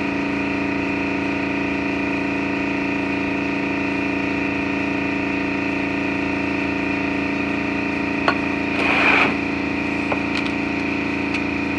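A steady machine hum made of many tones that hold one pitch. A sharp click comes just after eight seconds, then a short rattling scrape about nine seconds in.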